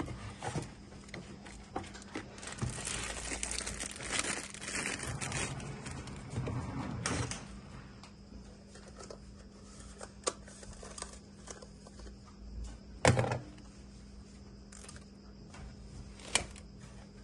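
Packaging handled during an unboxing: a few seconds of crinkling and rustling, then scattered clicks and light knocks, the loudest thump about two-thirds of the way through. A faint steady electrical hum underneath.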